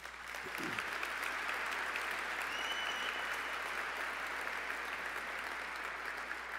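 Audience applauding, building up within the first second and tapering off slowly toward the end.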